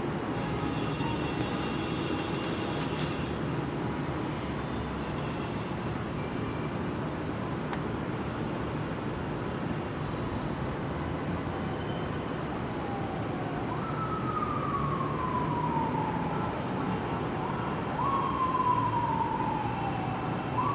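Siren wailing from about halfway through. Each cycle jumps up in pitch and glides slowly down over a few seconds, three times, over a steady background hum with a few faint clicks.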